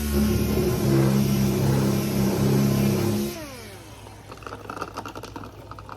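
Power sander with 320-grit paper running steadily on body filler with a hiss, switched off about three seconds in and winding down with a falling whine. Light scattered clicks and handling noises follow.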